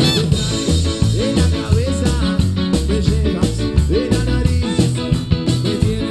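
Live cuarteto band playing with a steady dance beat: brass, electric guitars, bass, keyboard and drums, with a singer on microphone.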